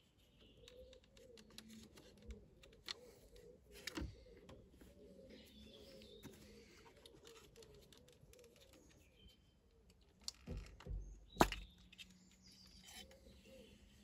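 Faint clicks and scrapes of a flat-bladed screwdriver prying an ignition coil pack up out of the cylinder head and working it loose, with a few sharper plastic knocks about ten to eleven seconds in. Birds chirp faintly in the background.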